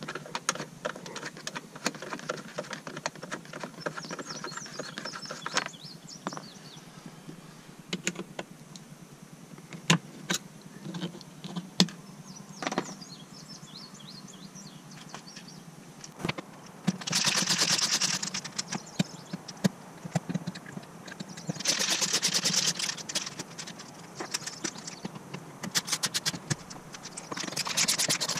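Hand work on the plastic trim fasteners of a car's cargo-area panel: scattered clicks and taps as the clips are handled and pulled. Then three spells of quick, rapid scratching clicks, the last near the end, as a screwdriver works a fastener loose.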